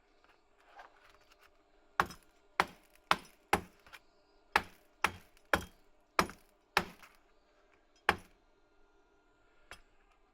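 Hammer striking metal: about ten sharp, ringing blows at roughly two a second, followed by a single last blow after a short pause.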